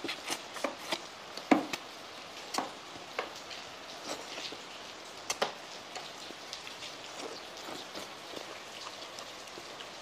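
Close-up eating sounds, irregular sharp clicks and smacks of mouth and chopsticks, thick in the first half and sparser later, over a steady hiss of heavy rain.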